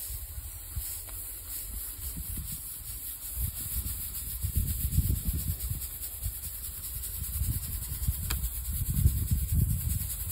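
Jetex 50 solid-fuel model jet motor burning with a steady gritty hiss, under gusts of low rumble that swell twice, in the middle and near the end.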